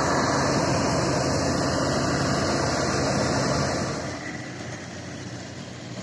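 Combine harvester running: a steady engine and machinery din that becomes quieter about four seconds in.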